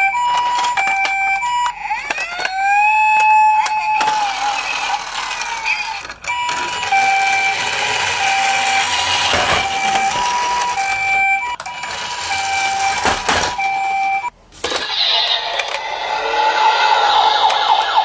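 Toy ambulances' electronic sirens: a hi-lo two-tone siren alternating evenly between two pitches, a rising wail that climbs and holds about two seconds in, and the hi-lo pattern again later, over the whirr and clicks of the toy running across the floor. Near the end, after a brief break, a different warbling siren takes over.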